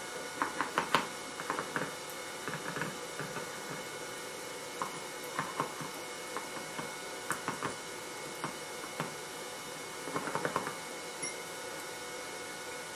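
Irregular small taps, clicks and scrapes of a hand tool working packed molding sand around a pattern in a wooden flask, coming in short clusters, over a steady background hum.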